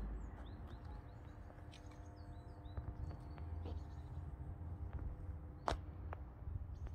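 Outdoor ambience with small birds chirping in many short, quick calls over a steady low rumble, and one sharp click a little before the end.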